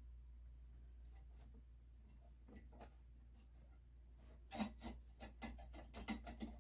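Noctua fan's wire mounting clips clicking and scraping against the heatsink fins as the fan is clipped onto the cooler: a few faint clicks, then a quick irregular run of sharp clicks over the second half.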